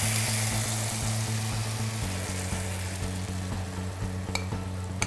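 Chicken stock poured into a hot pan of sautéed vegetables, hissing and sizzling as it hits the pan, loudest at first and then easing to a bubbling simmer. A couple of light clicks near the end.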